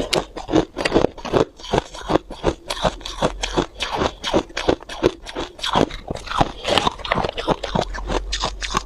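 Freezer frost being bitten and chewed close to the microphone: a fast, uneven run of crisp crunches, several a second.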